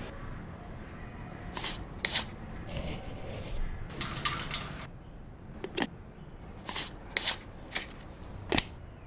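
Light clinks and taps of a metal spoon stirring in a porcelain coffee cup, then hands handling a glass snow-globe sugar bowl: about ten short, sharp clicks spaced unevenly, with some soft rustling in between.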